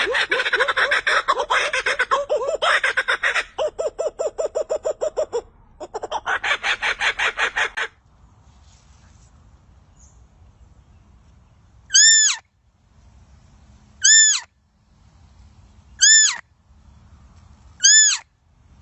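Animal calls: a loud, rapid pulsing trill for about eight seconds, then, after a quiet pause, four short arched calls, each rising then falling, evenly about two seconds apart.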